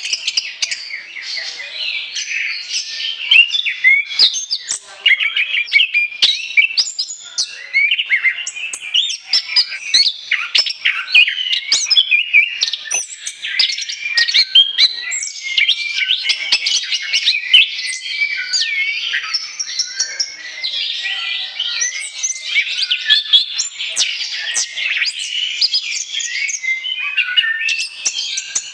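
Orange-headed thrush singing continuously: a fast, unbroken run of varied high chirps, trills and whistled phrases with no pauses.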